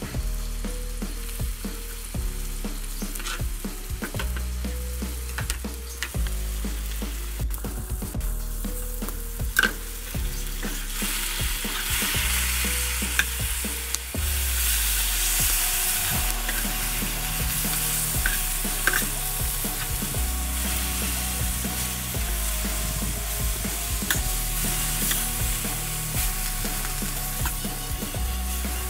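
Food sizzling as it fries in a pan, stirred now and then with short utensil clicks; the sizzle grows louder about eleven seconds in. Quiet background music with a low bass line runs underneath.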